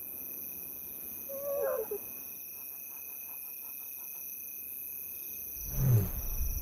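Lionesses' soft contact calls over steady cricket chirping: a short, wavering call about one and a half seconds in, then a louder, low call near six seconds in.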